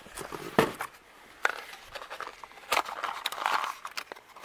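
A small cardboard parts box being handled and opened: cardboard rustling and scraping with a few sharp clicks.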